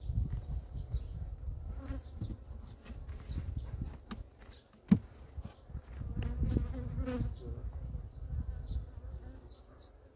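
Swarm of honey bees buzzing around an opened hive as brood frames are handled, the buzz swelling and fading as bees pass close. A sharp knock just before five seconds in is the loudest moment.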